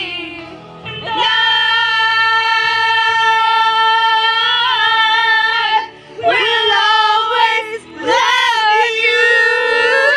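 A woman singing, holding one long high note for several seconds, then shorter notes that slide up and down after two brief breaths.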